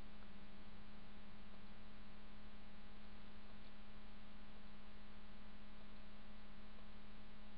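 Steady electrical hum with a strong low tone and a faint hiss, unchanging throughout, from the recording setup's background noise.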